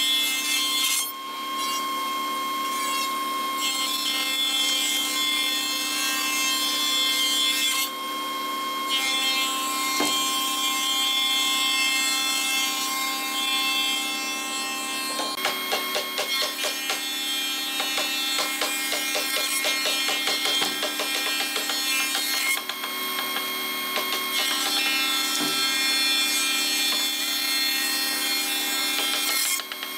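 Wood shaper (spindle moulder) running with a steady motor whine while its cutter moulds strips of red hardwood, a rasping cutting noise over it. For several seconds in the middle it turns to a rapid rattle.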